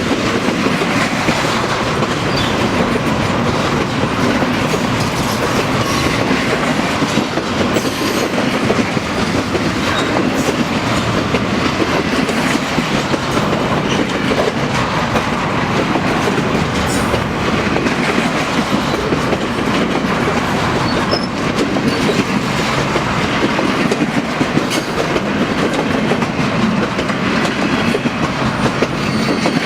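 Freight train's intermodal cars rolling past at speed: a steady, loud rumble of steel wheels on rail with a continuous clickety-clack of wheels over rail joints.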